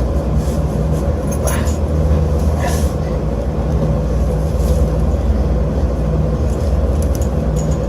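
Rooftop HVAC unit running with a steady, loud mechanical hum, heard from inside its cabinet. A couple of brief knocks or scrapes about a second and a half and nearly three seconds in.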